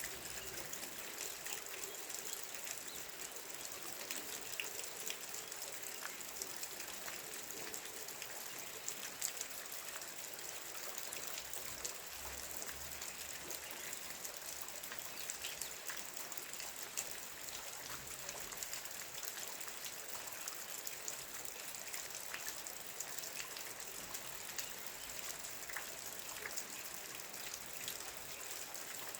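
Steady light rain falling, with many small drips and drops ticking sharply against the steady hiss.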